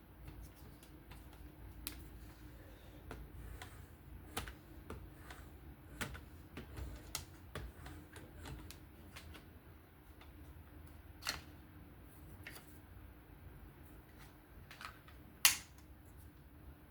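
Light, irregular clicks and taps from a Work Sharp Professional fixed-angle sharpener as a knife blade is stropped with no pressure on a 1-micron strop, with a sharper click about two thirds of the way in and the loudest one near the end.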